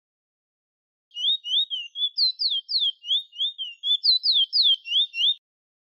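Bullfinch (chestnut-bellied seed finch) singing a fast run of clear whistled notes: short rising notes alternating with higher, falling slurs, the phrase given twice. It starts about a second in and stops near the end.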